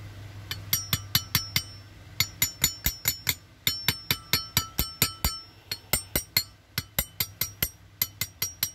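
Quick runs of light metallic taps, about four or five a second with short pauses, each ringing briefly: a stuck part of an electric fan motor being tapped into place.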